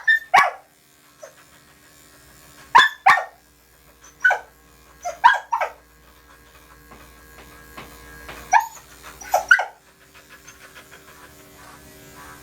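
Portuguese Water Dog barking, about eleven short sharp barks in bunches of two or three, over the steady hum of electric dog clippers.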